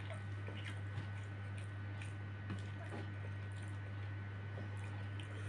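Faint eating sounds: a man chewing and his fingers working rice and Madura-style duck, with a few soft clicks, over a steady low hum.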